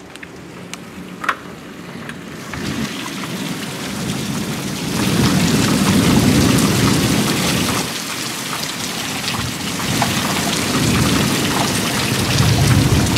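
Heavy thunderstorm rain pouring down on a lawn, building up over the first few seconds to a loud steady downpour, with low rolling thunder swelling under it twice, about five seconds in and again near the end.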